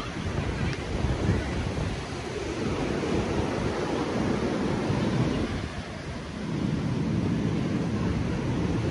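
Ocean surf breaking and washing up the beach in a steady rush that swells and ebbs, dipping briefly about six seconds in before building again.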